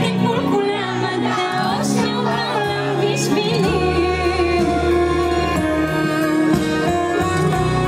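Pop music with a woman singing over instrumental backing.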